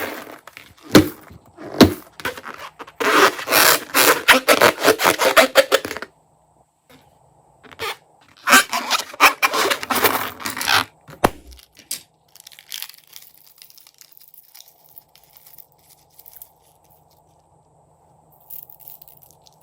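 Crunchy slime being squeezed and kneaded by hand, crackling and popping in two dense runs of about three seconds each. A few single sharp cracks come just before the first run, and only faint rustling follows the second.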